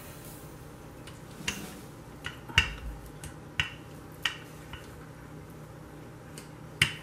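Wooden rolling pin with handles clicking and knocking against a wooden countertop while dough is rolled out: about nine sharp, uneven knocks, the loudest a little over two and a half seconds in.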